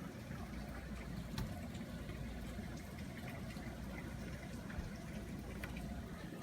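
Heavy rain falling steadily: a faint, even hiss with a few light drip ticks.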